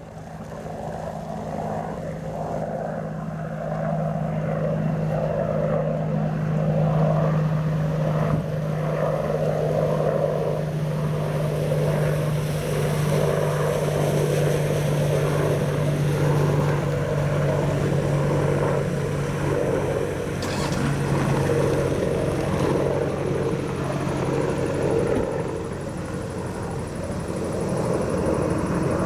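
AH-64 Apache attack helicopter flying overhead on approach: its rotors and twin turboshaft engines give a pulsing rotor beat over a steady hum. The sound grows louder over the first several seconds, then holds steady with slight swells.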